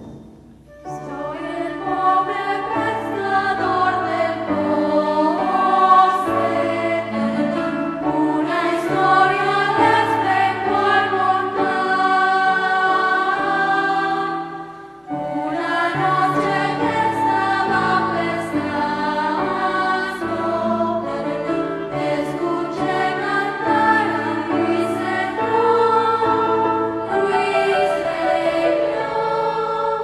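A choir singing a song together with instrumental accompaniment. The singing drops away briefly about halfway through, then starts again.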